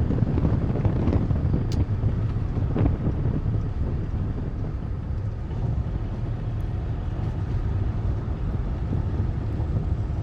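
Car driving along a road, a steady low rumble of engine and tyre noise, with wind on the microphone.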